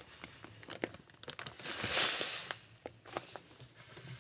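Powdered laundry detergent poured from a crinkling plastic bag into a plastic measuring cup, with a hiss that swells about halfway and scattered small ticks.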